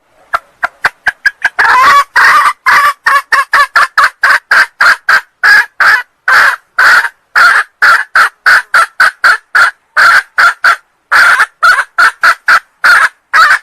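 A red junglefowl hen giving a long run of short, rapid clucking calls, about three to four a second. The calls start faint and grow loud about two seconds in. It is the hen's call used to lure junglefowl cocks.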